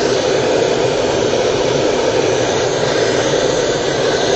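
Old Sievert gas torch burning with a steady rushing flame, playing onto a ceramic crucible to heat it so that the borax flux sprinkled inside melts into a glaze.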